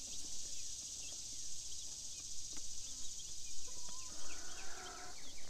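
A brood of day-old Jumbo Cornish Cross chicks peeping, with many short, high, falling chirps, over a steady high-pitched drone of insects.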